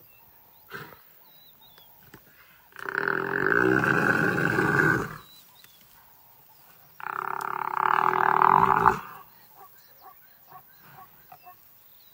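Two long, loud animal cries of about two seconds each, from two male lions pulling down a still-living bull eland; between them only faint small sounds.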